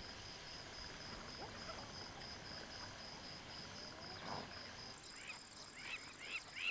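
Faint wild bush ambience: a high insect chirp pulsing in an even, steady rhythm, joined about five seconds in by a bird calling over and over in short, quick rising-and-falling notes.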